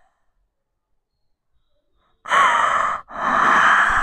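A woman breaking down crying: two loud gasping sobbing breaths about two seconds in, the first with a short catch in the voice.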